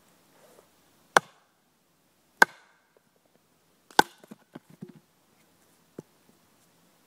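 Batoning with a Ka-Bar Large Heavy Bowie: a wooden baton strikes the knife's spine to split an upright log. Three sharp knocks come a little over a second apart, then a quick run of lighter taps, and one more knock near the end.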